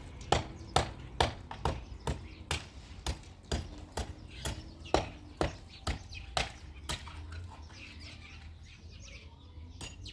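A series of sharp knocks or impacts, about two a second, fading out about seven seconds in.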